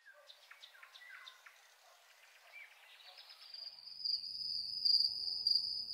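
Faint night ambience of small chirps from insects and birds. About three seconds in a steady high-pitched whine comes in, with a low rumble swelling beneath it, growing louder toward the end.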